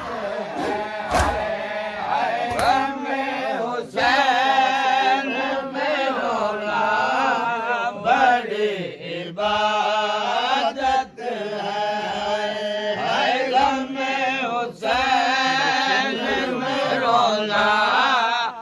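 Mourners chanting a noha together in a steady, repeating melody, with scattered sharp strikes of matam (hands beating on chests).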